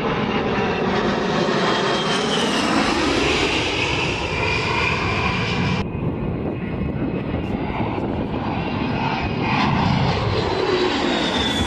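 An A-10C Thunderbolt II's twin General Electric TF34 turbofan engines are heard as the jet flies past, a steady jet rush whose tones sweep up and down as it goes by. The sound changes abruptly about halfway through, then swells again near the end as the jet comes close overhead.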